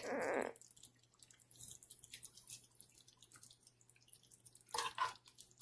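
Faint wet drips and small clicks of a metal spoon moving through a pan of stew chicken and gravy, with a brief louder noise about five seconds in.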